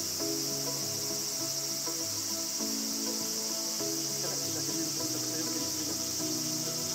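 A steady, high-pitched chorus of insects chirring without a break, with soft melodic background music beneath it.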